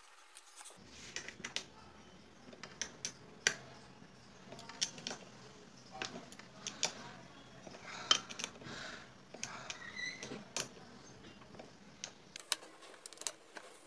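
Socket wrench on a long extension tightening the clutch pressure-plate bolts of a Bajaj CT100 motorcycle engine: scattered light metallic clicks and clinks of the tool on the bolts, with short runs of quicker clicking near the middle.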